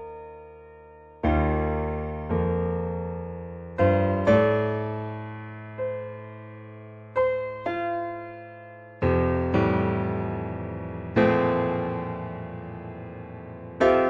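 Slow, sparse background piano music: chords struck one at a time, about every second or two, each left to ring and fade.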